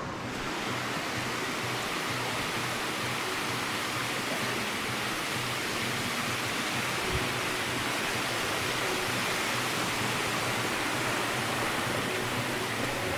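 Rushing creek water: a steady, even rush of flowing water.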